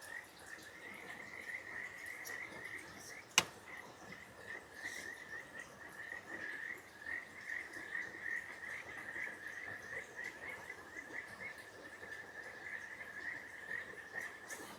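A chorus of frogs calling, a steady run of quick, repeated high trilled notes, over a faint rushing background of river water. One sharp click stands out about three and a half seconds in.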